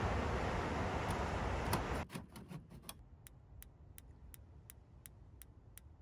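Wind and surf noise, cut off abruptly about two seconds in. Then the gas-burner spark igniter of a camper's refrigerator clicks steadily, nearly three clicks a second, as it sparks without lighting the burner.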